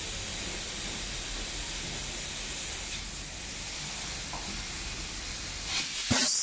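Compressed air hissing steadily from an air-gun nozzle on a hose, with a louder burst of air near the end: air blown into a plastic cube mould to push the concrete test cube out.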